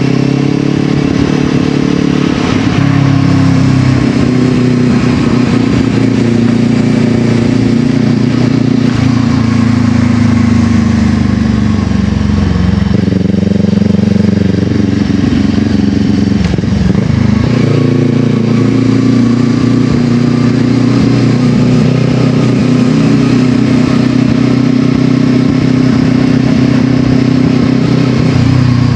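Brixton Crossfire 500's parallel-twin engine running under way through an FF by Fresco exhaust with its baffle fitted. The exhaust note drops and builds again several times, with a brief dip a little past the middle.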